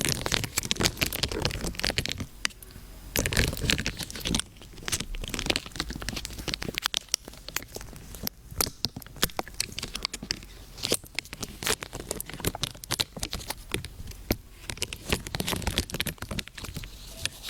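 Dense, irregular crinkling and crackling made of many small sharp clicks, with louder stretches near the start and around three seconds in.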